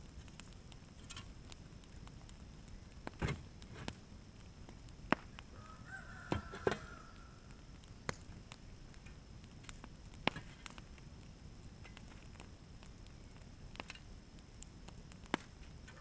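Wood-pallet fire crackling, with scattered sharp pops every second or two. A single short honk sounds about six seconds in.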